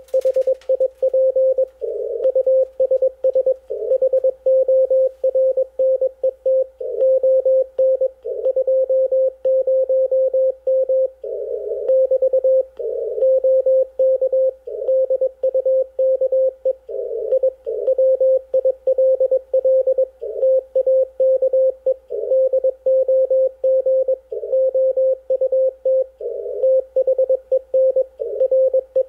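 Morse code (CW) from an Icom IC-746PRO HF transceiver: a single mid-pitched tone keyed on and off in dots and dashes at an even, conversational sending speed.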